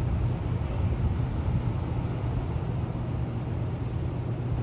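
Steady low background rumble with no distinct events, the kind of hum that comes from nearby industrial machinery or wind on the microphone.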